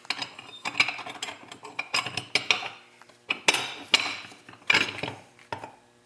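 Steel and brass parts of a Folger Adam 80 series detention lock clinking and scraping against the steel lock case as they are handled, in several short clusters of clicks.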